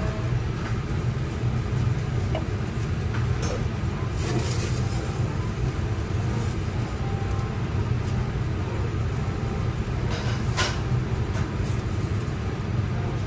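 Steady low hum of a restaurant ventilation fan, with a few faint clicks.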